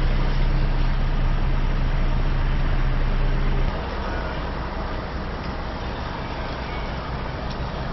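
A large vehicle's engine runs with a steady low hum over broad road-like noise. About four seconds in the hum stops abruptly, and a lower, steady rumble goes on.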